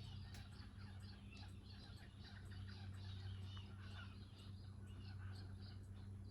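Faint, steady low hum of a 1970s Mistral MCFLA36 ceiling fan motor running on its medium-low speed, with birds chirping in the background.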